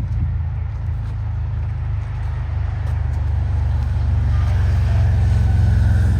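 A motor vehicle's engine running close by, a steady low rumble that grows louder as it draws near.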